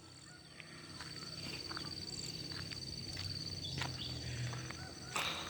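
Rural field ambience: a steady high insect trill over a low background hum, with a few scattered light clicks.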